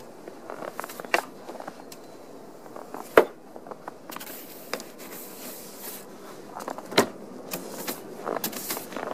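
Snow brush sweeping snow off a car's windshield and hood: soft brushing swishes broken by a few sharp knocks, the loudest about three seconds in and another about seven seconds in.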